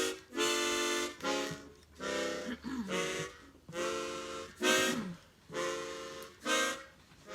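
A simple tune played on a free-reed instrument: about nine separate held notes, each under a second long, with short gaps between them.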